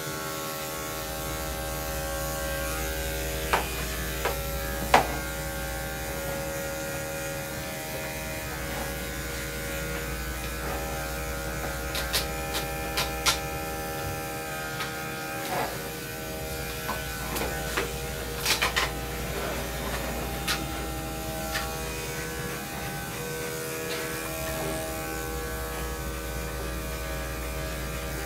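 Electric dog grooming clippers running with a steady buzz as they shave a dog's coat. A few short clicks and knocks come at scattered moments.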